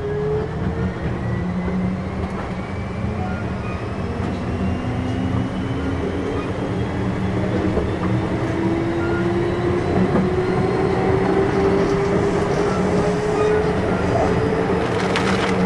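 Kintetsu 6200 series electric train running, heard from inside the car: the motor whine rises slowly in pitch as the train gathers speed, over a steady low rumble, with a few clicks near the end.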